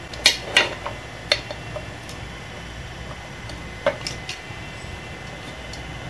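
A few short, sharp clicks and clinks of hard plastic and metal fan parts and hand tools being handled while a ceiling fan motor is put back together: two close together near the start, another about a second in, and a couple more about four seconds in, over a low steady hum.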